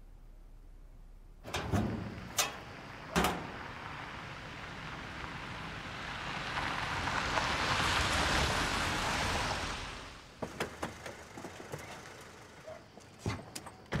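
A car drives up and comes to a stop: its engine and tyre noise swells, is loudest about eight seconds in, then dies away. Three sharp knocks come before it, and scattered clicks and a door thunk come near the end.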